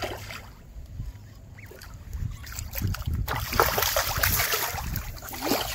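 Hooked striped bass thrashing and splashing at the water's surface, a loud crackling burst of splashes starting about halfway through, over a steady low wind rumble on the microphone.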